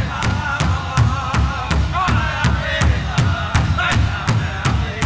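Powwow drum and singers: fast, even beats on a large drum, about five a second, under high, wavering group singing.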